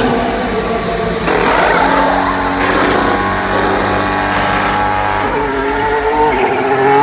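Formula 1 car's turbocharged 1.6-litre V6 during a pit stop. The engine note falls as the car comes in and holds steady, with short noisy bursts about a second in and again over the next two seconds, then the pitch rises as the car pulls away near the end.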